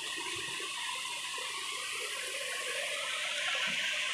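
Swollen, muddy floodwater rushing steadily in a stream in spate after heavy rain.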